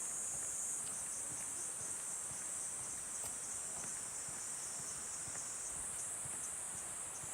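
A steady, high-pitched chorus of summer insects singing without a break, with the even rush of a valley stream faintly beneath.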